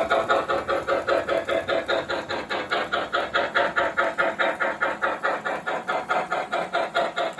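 Electronic steam-locomotive chuffing from an MTH O-gauge engine's Loco-Sound system, a steady run of quick chuffs about six a second played through the model's small speaker.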